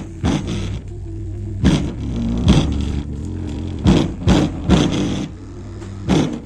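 Low-pass-filtered music played through a bare 8-inch subwoofer driver: a deep, continuous bass line with thudding beat hits several times over, the mids and highs cut off so that only the bass comes through.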